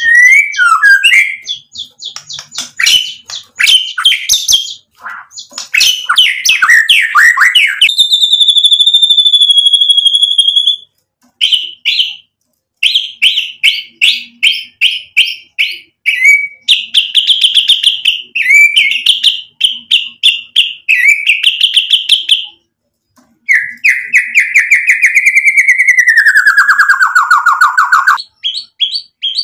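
Male white-rumped shama (murai batu) singing a loud, varied song: fast chattering trills, a long held whistle, runs of rapid repeated notes, and near the end a long trill that falls steadily in pitch.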